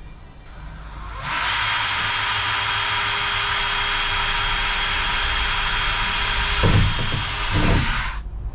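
Cordless drill running steadily with a 1/8-inch bit, boring a guide hole through the sheet-steel panel of a Ram ProMaster's sliding door. The drilling starts about a second in and cuts off abruptly near the end, with two low thumps shortly before it stops.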